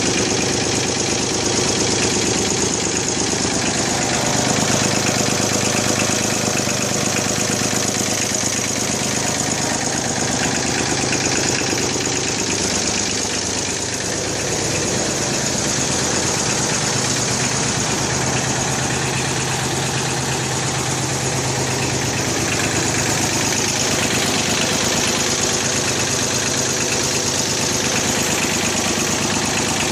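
Small 32 hp farm tractor engine running steadily, dipping slightly in level about fourteen seconds in.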